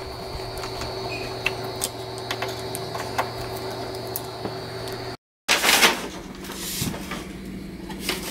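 Small clicks and scrapes of a screwdriver backing a screw out of a door-trim bracket, over a steady hum. After a short break about five seconds in, the louder crinkling of brown paper as a wrapped glass pane is handled.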